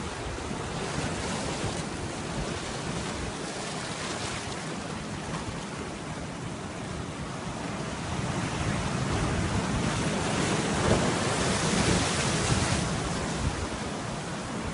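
Sea waves surging and breaking, with wind buffeting the microphone; the surf swells louder about halfway through and eases off near the end.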